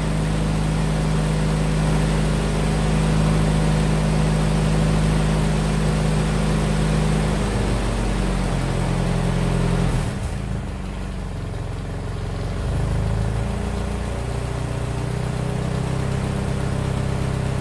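Ford GPW's four-cylinder flathead engine running at idle. Its note shifts about eight seconds in, drops at about ten seconds and picks up again a few seconds later.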